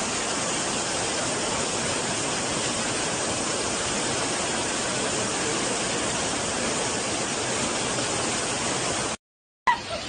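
Heavy rain falling, a steady even rush of noise, which cuts off suddenly about nine seconds in. A sharp knock follows near the end.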